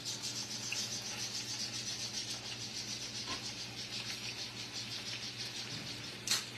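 Chorizo frying in a skillet: a steady sizzle with a fast, even crackling pulse over a low hum, and a sharp clatter near the end.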